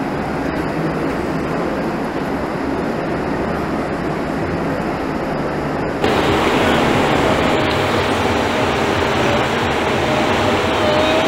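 Steady noisy din of a large indoor arena hall. About six seconds in it jumps abruptly louder, with a faint wavering whine on top.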